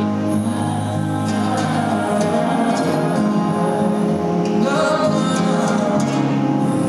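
Music with sustained sung, choir-like voices and long held notes.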